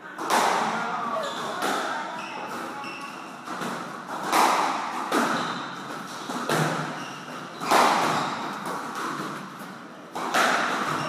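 Squash rally: the hard rubber ball smacking off the rackets and the court walls, sharp hits every second or two that echo around the enclosed court, with short high squeaks of shoes on the wooden floor between them.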